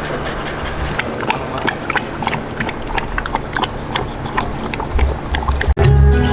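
Irregular sharp clicks and taps over steady background noise. Near the end the sound cuts out abruptly and music with a steady low beat starts.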